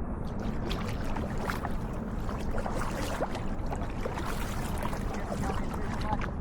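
A boat on the water: small splashes and drips, many short ticks scattered throughout, over a steady low rumble.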